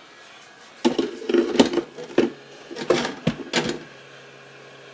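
Hard objects clattering and knocking on a workbench in two short bursts as tools are picked up and set down. Near the end a steady electric hum starts: a heat gun switched on to shrink heat-shrink tubing.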